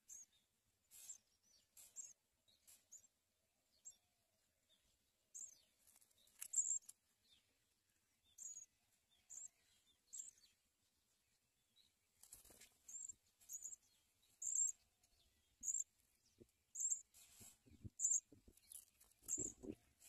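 Songbird nestlings begging at the nest as an adult feeds them: faint, short, high-pitched chirps repeated every second or so, coming thicker in the second half. A few low knocks sound near the end.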